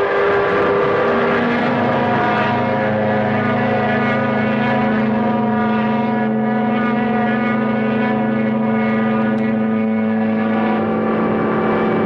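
Ships' horns and steam whistles sounding together in a long, steady chord of several held tones, a lower one joining about a second in and the mix changing near the end. This is a mourning signal: horns, whistles and sirens sounded at once at the hour of a state funeral.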